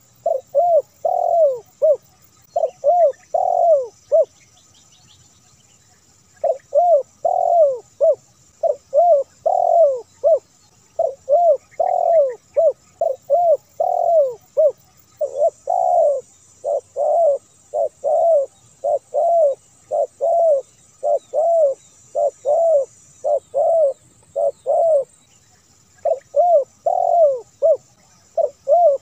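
Spotted dove cooing: phrases of low, arched coos repeated over and over, a deep-voiced 'kuk 1' type song. There is a pause about four seconds in and a short one near the end.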